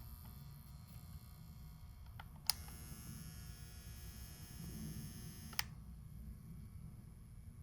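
Soldering gun switched on with a trigger click, buzzing faintly for about three seconds, then released with a second click. A low steady hum runs underneath.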